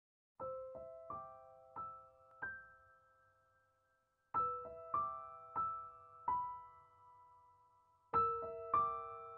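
Soft solo piano music starting about half a second in: three short phrases of about five notes each, every note struck cleanly and left to ring out and fade.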